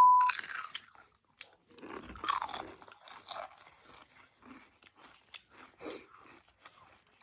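A steady electronic beep cuts off right at the start, then close-miked crunchy chewing and biting: irregular short crunches, loudest about two seconds in.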